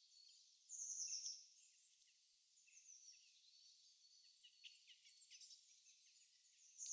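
Faint birdsong from a winter-morning nature recording: several small birds chirping and calling, with a louder trill about a second in and another at the very end.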